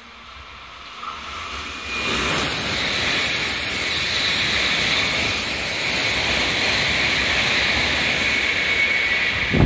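Shinkansen bullet train passing through the station without stopping: a rush of wheel and air noise that builds about a second in, then a steady loud roar with hiss as the cars go by, dropping off near the end.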